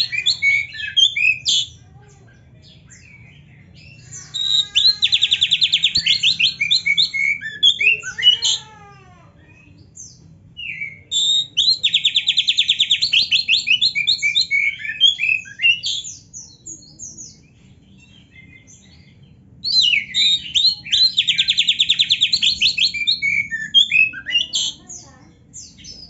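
Caged male oriental magpie-robin singing in four bouts separated by short pauses. Each bout opens with a very fast, even trill and runs on into varied whistled and sweeping notes, a song filled with canary-style phrases.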